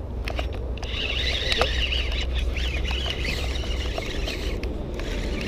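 A small songbird chattering and warbling in a rapid string of jagged, rising and falling high notes that lasts a few seconds, over a steady low rumble.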